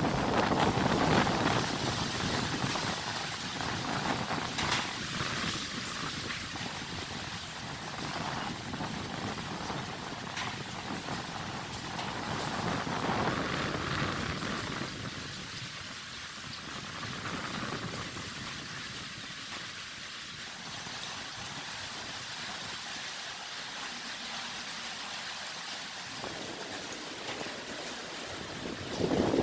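Typhoon-force wind rushing steadily in a lull between stronger gusts, swelling a little about halfway through and then settling back.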